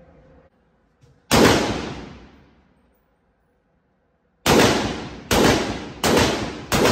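Zastava ZPAP92 AK pistol in 7.62 firing five semi-automatic shots on an indoor range: one shot about a second in, then after a pause four more in quick succession, roughly three-quarters of a second apart. Each shot trails off in a long echo.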